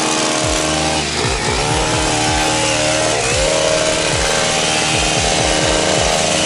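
Petrol engine of a pole hedge trimmer running at high throttle while its blades cut a shrub. The engine note dips briefly about a second in and again a little after three seconds.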